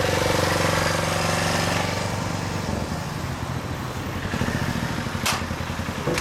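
Suzuki Tempter 400's big single-cylinder engine idling with a steady pulse, its tone shifting lower about two and a half seconds in. A single sharp click sounds about five seconds in.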